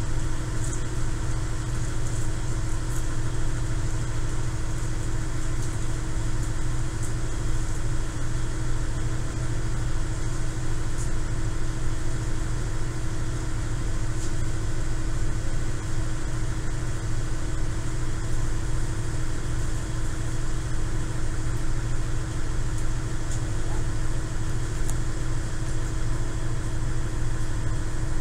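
KiHa 110 series diesel railcar's engine idling steadily while the train stands at a station, a constant low drone with a steady hum above it.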